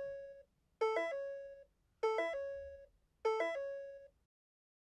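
A short electronic chime jingle repeating about every 1.2 seconds: each time a quick cluster of bright, ringing notes that settles onto one held lower note and dies away. The last one ends a little before the close.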